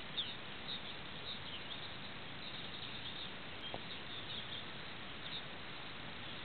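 Faint high chirps of small birds, short downward-sliding notes repeated irregularly, over a steady hiss.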